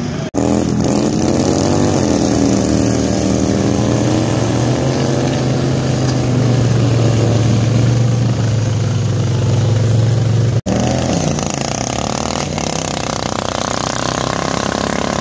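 Racing lawn tractor engines running hard, their pitch climbing over the first few seconds and then holding as a loud, steady drone. The sound cuts out abruptly twice, just after the start and about ten and a half seconds in, and after the second cut engines run at a lower, uneven pitch.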